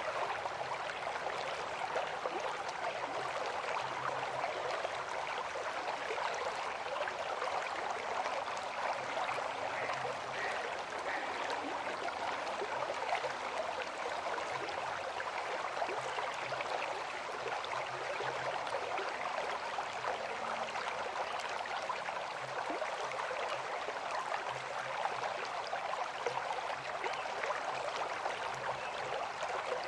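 A river flowing, making a steady, even rush of water.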